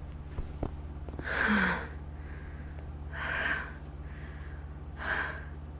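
A woman breathing heavily in pain: three audible breaths or gasps about two seconds apart, the first with a brief voiced catch. The breathing comes over a low, steady hum.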